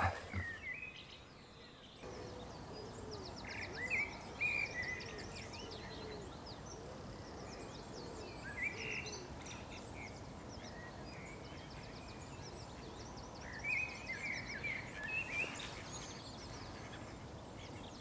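Outdoor birds calling and chirping, with several bursts of quick high trills and short calls over a steady low background noise.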